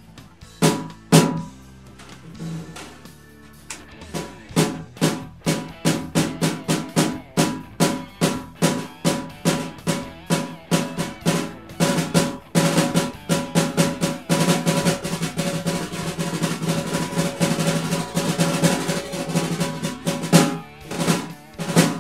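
Snare drum with its snares on, freshly re-tensioned after a new batter head, played with sticks. A couple of single hits, then steady strokes at about three a second, then a long roll from about twelve seconds that ends in a few accented hits. The tuning has improved the drum's sound.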